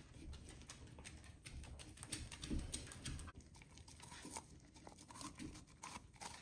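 Faint clicking and patter from a Welsh corgi: its claws tapping on a hard floor, and the dog biting and chewing a chunk of raw pumpkin taken from a hand.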